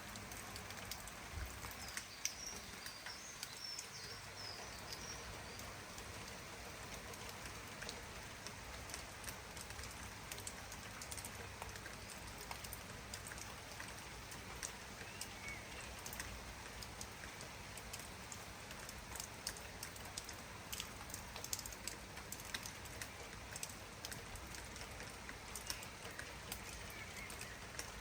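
Steady rain falling, with many small sharp drop ticks over an even hiss. A bird chirps a quick run of high notes between about two and five seconds in, with a few fainter chirps later.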